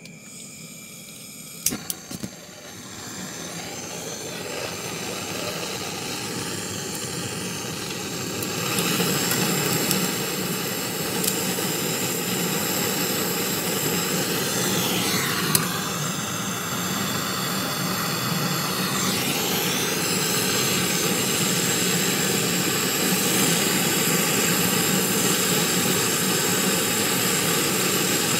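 Gas brazing torch lit with a few sharp clicks about two seconds in, then a steady roar of the flame that grows louder over the next several seconds as it heats the copper condenser line joint on the refrigerator compressor stub.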